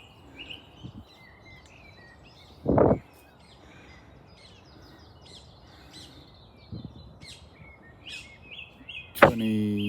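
Dawn birdsong: several small birds chirping and trilling continuously over faint outdoor background noise. A brief loud rustle-like burst comes about three seconds in, and a loud voice-like sound begins near the end.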